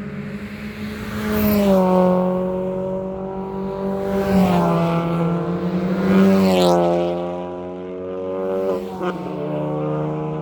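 Car engine and exhaust revving, the pitch climbing and falling again several times, then dropping sharply a little before the end.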